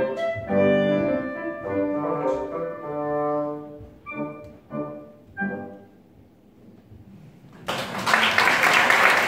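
Live classical chamber music playing its last few notes, led by a wind instrument, which die away about six seconds in. After a brief hush, the audience bursts into applause near the end.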